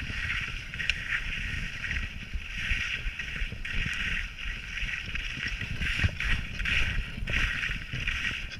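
Skis sliding and scraping over hard snow, a steady hiss that swells and fades with the turns, with wind rumbling on the camera microphone.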